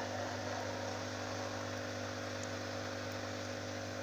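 Aquarium internal filter pump running with a steady hum and an even hiss of air bubbling through the water, its air-line tap just closed.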